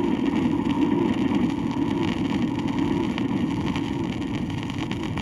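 Train running continuously: a steady low noise that slowly gets quieter, with the faint crackle of 78 rpm record surface noise.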